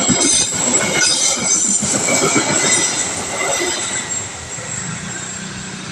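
A train passing over a level crossing, its wheels squealing with thin high tones over a rattling rumble on the rails, growing quieter over the last couple of seconds.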